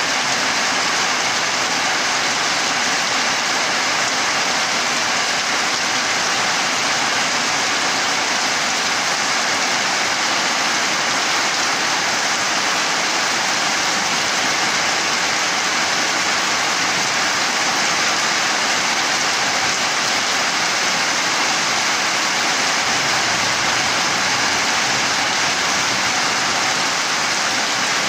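Heavy tropical downpour, rain pouring steadily onto leaves and a puddled dirt yard: a dense, unbroken hiss.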